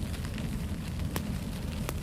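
Fire crackling in a fireplace: a steady low rumble of flames with scattered sharp pops, two louder ones in the second half.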